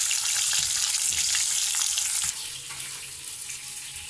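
Anchovies on toothpicks sizzling in hot oil in a frying pan, with light clicks of the turning utensils against the pan. A bit over two seconds in the sizzle cuts off abruptly, leaving a quieter hiss.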